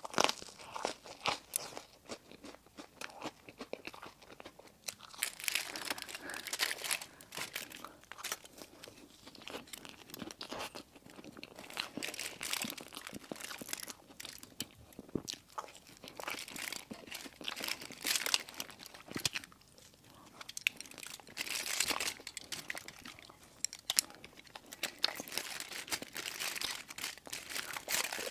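Close-miked eating of a crunchy dessert: repeated bites and crackly crunching as it is chewed, in bouts of a few seconds with short pauses between.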